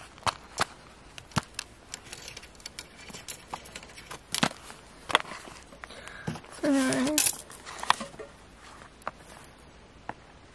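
A digging stick scraping and picking at a crumbly plaster dig block, with many small irregular clicks and crumbles of plaster. A short voice sound comes a little past the middle.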